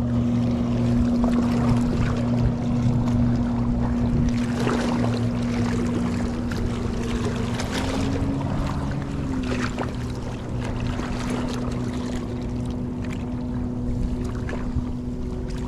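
A boat engine running steadily nearby, its pitch rising slightly for a moment about halfway through, under wind on the microphone and a few scattered knocks.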